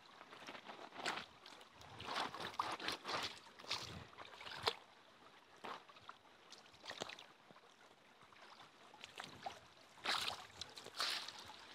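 Footsteps crunching through dry leaf litter and twigs, in irregular clusters of crackles, with a quieter spell of a couple of seconds before the crunching picks up again.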